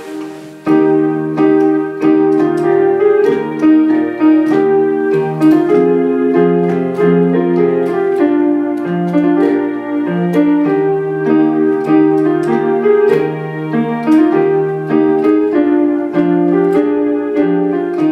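Hymn tune played on a piano-sounding keyboard, held chords with the melody moving a note about every half second. There is a short break just under a second in, then the playing resumes.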